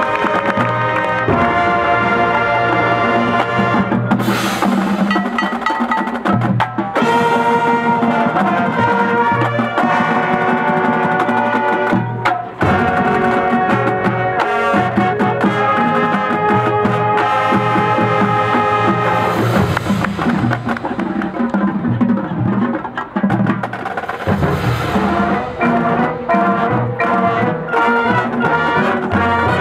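High school marching band playing: brass melody in held notes over marching percussion.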